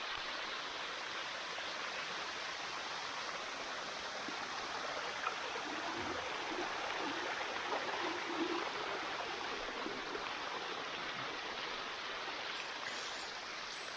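Steady rush of water from the Bua Tong sticky waterfall running over its rocks.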